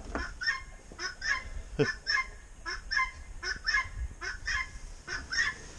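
Domestic geese honking over and over, short harsh honks about two or three a second.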